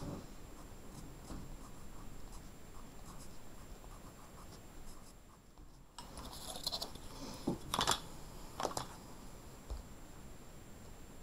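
Pencil scratching on paper, faint at first, with a busier stretch of sharper scratches and a few clicks between about six and nine seconds in.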